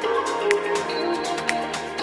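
Background music with a steady beat, a sharp percussive hit about once a second over sustained melodic tones.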